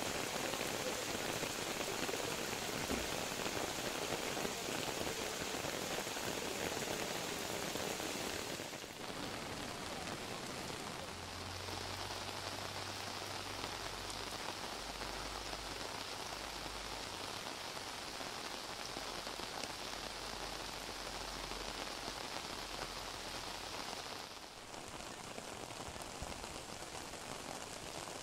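Steady rain falling, an even hiss that shifts a little in tone about nine seconds in and again near the end.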